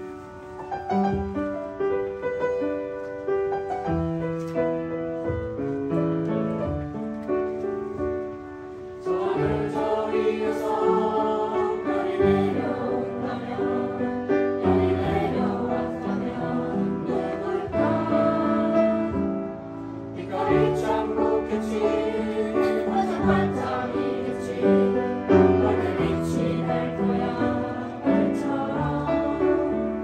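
Upright piano playing alone for the first several seconds, then a group of children and adults singing along with it from about nine seconds in, with a short break between phrases about two-thirds of the way through.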